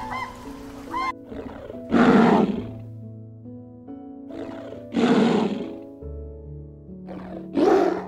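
Lion roaring three times, a loud call about every three seconds, each with a shorter, softer one just before it, over background music.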